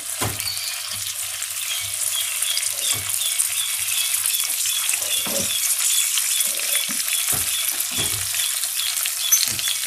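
Eggplant slices sizzling in hot oil in a frying pan, with a handful of short knocks and scrapes from a metal slotted spatula against the pan as the pieces are turned.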